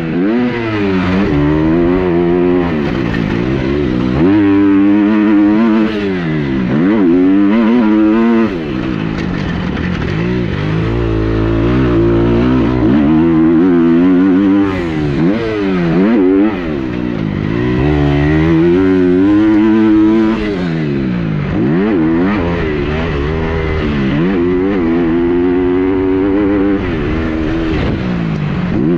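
Motocross bike engine being ridden hard, revving up and dropping back over and over as the throttle is opened and closed, its pitch rising and falling every couple of seconds.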